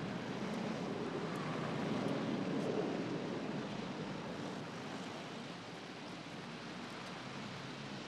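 A car driving close by, its engine and tyres making a steady rushing noise that is loudest two to three seconds in and then fades.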